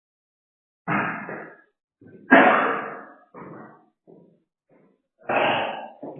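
A person coughing repeatedly and clearing phlegm from the throat: four loud, abrupt coughs about a second or more apart, with fainter coughs and throat sounds between them.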